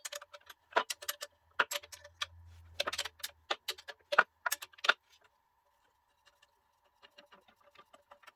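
Irregular sharp metallic clicks and clinks of tools and parts being handled during disassembly of a small electric locomotive, thick for about five seconds, then a few fainter ones near the end. A brief low hum sounds about two seconds in.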